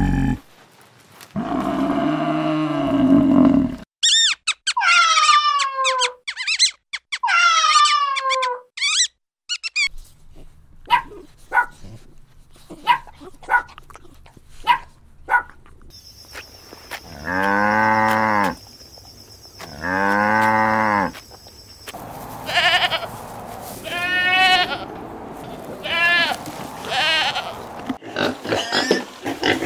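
A run of different animal calls: a low call, two high wavering calls that fall steeply in pitch, a string of short sharp dog yips and barks, two long bleats, then young pigs squealing near the end.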